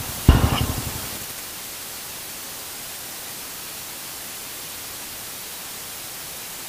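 Steady, even hiss like static, after a short loud sound about a third of a second in that fades within a second.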